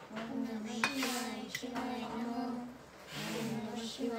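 Steel puja bowls and utensils clinking, with one sharp clink about a second in. Under it a voice chants a pooja prayer on long held notes, in phrases of a second or so.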